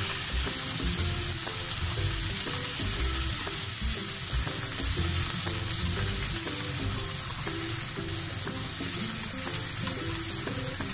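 Onion chunks and cashews sizzling steadily in a non-stick frying pan with a splash of added water, stirred and turned with long cooking chopsticks.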